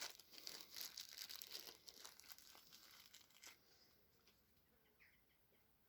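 Faint crinkling and rustling from handling small parts, which stops about three and a half seconds in, leaving near silence.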